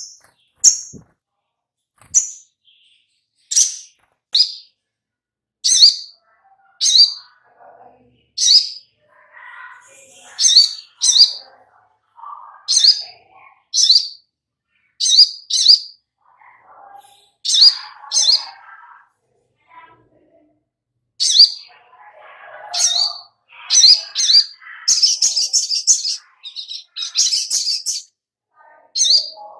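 Brown-throated sunbird (sogok ontong) calling: sharp, high chirps that drop in pitch, given singly or in pairs about once a second, breaking into a fast twittering run near the end.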